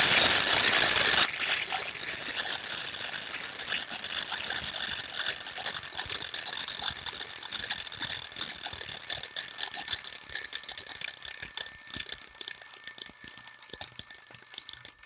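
Mechanical wind-up Accurite alarm clock ringing on a full wind, its hammer rapidly striking the bells in a continuous high-pitched ring. It is loud for about the first second, then carries on at a lower, steady level. The alarm striking properly shows the reassembled strike mechanism works.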